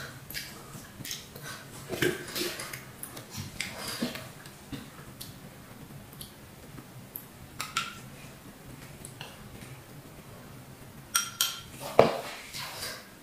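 Wet mouth and chewing clicks while eating fried tempe. Later a metal spoon clinks and scrapes against a porcelain bowl as sambal kecap is spooned out, with a few sharp knocks near the end, the loudest about twelve seconds in.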